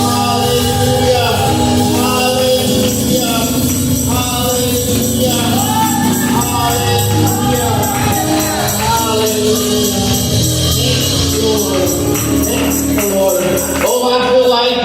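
Gospel music: a choir singing with a band, a high shaking percussion such as a tambourine coming in about three seconds in and dropping out near the end.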